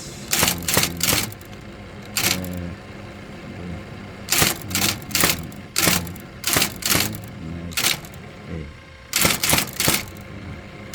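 VariTyper Model 1010 composing typewriter being typed on: sharp keystrike clacks in short irregular runs of a few strokes, with pauses between, as a short test phrase is typed out.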